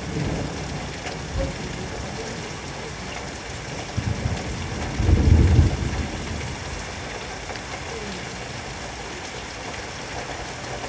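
Steady rain falling hard in a thunderstorm, with a brief low rumble about five seconds in.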